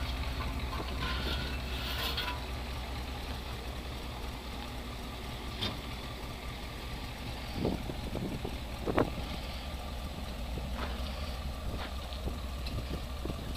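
An engine idling steadily, with a few short knocks, the loudest about eight and nine seconds in.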